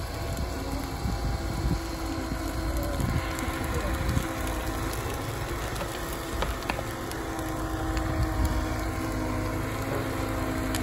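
Diesel engine of a Liebherr road-rail wheeled excavator running steadily while its grab works over a bonfire. Scattered sharp crackles come from the burning brush.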